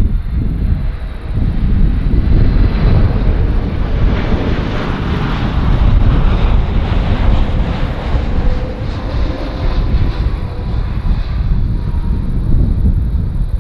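Boeing 747-8F freighter's four GEnx turbofans on final approach, passing low and close: a loud jet roar with a faint steady whine, swelling through the middle and then easing off.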